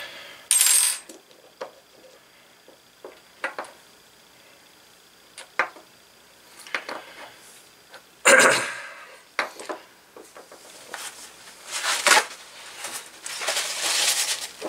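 Small hand tools and parts of a model glow engine being handled during disassembly: scattered light clicks and metal taps, a sharp clatter about eight seconds in, and a stretch of busier handling noise near the end.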